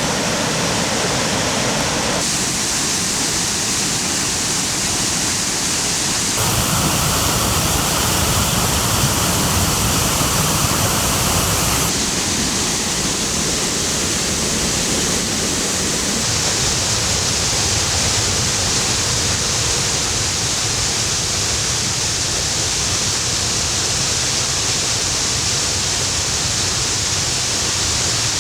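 Karpysak waterfall's water falling in a steady, full rush. The sound changes abruptly a few times and is loudest and brightest for about five seconds from six seconds in.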